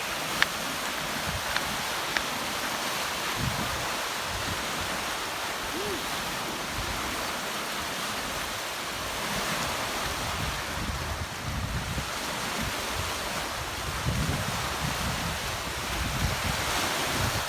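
Ocean waves and surf washing steadily, with wind buffeting the microphone in uneven low gusts. A few small clicks in the first couple of seconds.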